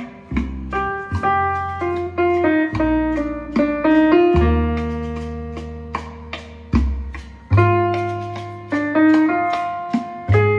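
Solo piano recording played back through Quad ESL-57 electrostatic loudspeakers. Struck notes ring and fade, with deep bass notes held under the melody.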